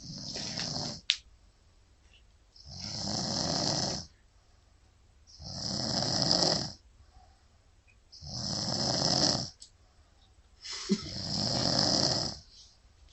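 Steady rhythmic snoring: five long snores, one every two to three seconds, with quiet in-between. A brief sharp click about a second in.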